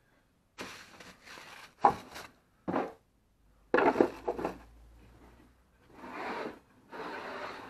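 A mud pan being handled and set down into a plywood tool caddy: rubbing and scraping against the wood, broken by several sharp knocks, the loudest about four seconds in.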